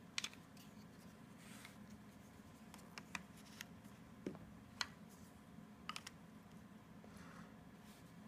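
Faint, sparse clicks of puzzle-cube block pieces knocking together as they are handled and fitted, a few light taps spread over several seconds, over quiet room tone.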